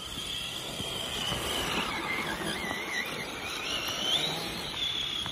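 Radio-controlled truck's motor whining at high speed, its pitch wavering, dipping and rising again with the throttle, over the hiss of its wheels spinning and sliding through snow.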